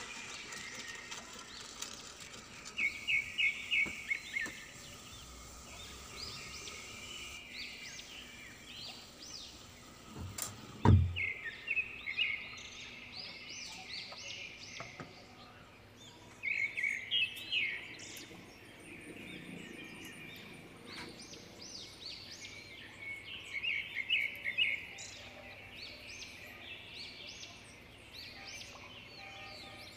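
Small birds chirping in short repeated bursts of quick trills, over a steady low hiss. A single sharp knock about eleven seconds in is the loudest sound.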